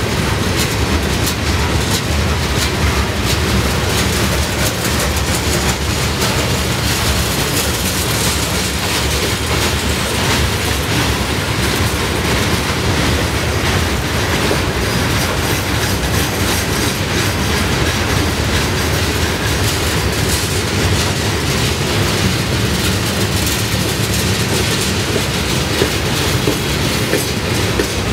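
Freight cars of a slow-rolling CSX train, covered hoppers and tank cars, passing steadily. Their steel wheels make a continuous rolling rumble with frequent clicks.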